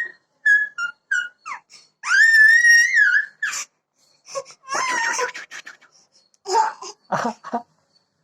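Baby squealing while playing: several short, high squeaks, then a long, wavering high squeal about two seconds in, followed by more squeals and some lower, rougher vocal sounds near the end.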